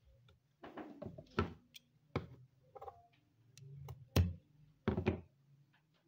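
Handling noises: a handful of sharp knocks and thuds with brief rustling, the loudest knock about four seconds in.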